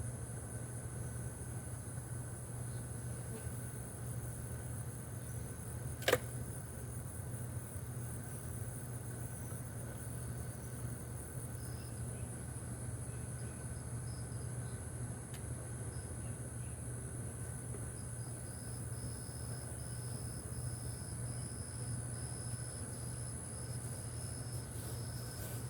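Steady insect buzzing with a low hum under it, and one sharp click about six seconds in.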